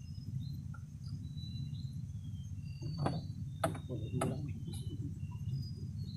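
Steady low rumble of wind and water around a small wooden fishing boat, with three sharp knocks about three to four seconds in and faint, short, high chirps scattered throughout.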